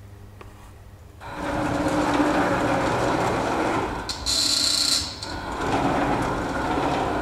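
Plasma cutter on a CNC table firing and cutting: a loud, steady hiss of the torch's air and arc starts about a second in and holds, with a brief sharper high hiss about four seconds in.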